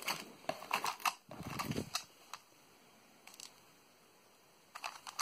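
Small plastic bags of electronic components being handled, crinkling and clicking, busiest in the first two seconds, then a few faint clicks and a short cluster of them near the end.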